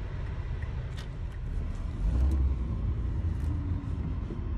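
A car driving: low engine and road rumble that grows louder about two seconds in, with a few light clicks.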